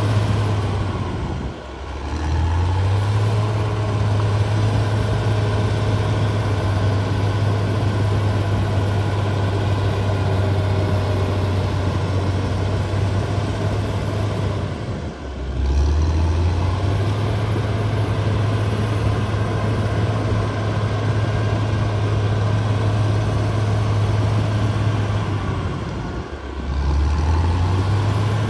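Caterpillar D6R XL crawler bulldozer's diesel engine running steadily under load as the dozer pushes soil. Three times the engine note briefly drops away and then climbs back up.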